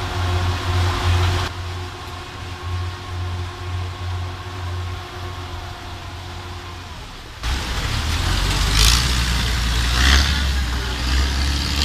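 An engine running steadily with a low hum. About seven and a half seconds in the sound jumps to a louder, noisier stretch with the hum still underneath.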